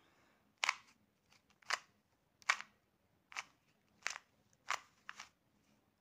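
A 2x2 Rubik's cube being turned by hand as a solving algorithm is worked through: each layer twist gives one sharp plastic click, seven in all, about one every three quarters of a second.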